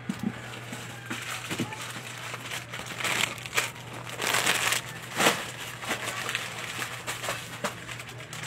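Plastic snack wrappers and bagged packs crinkling as they are handled, in irregular bursts that are loudest around the middle, over a steady low hum.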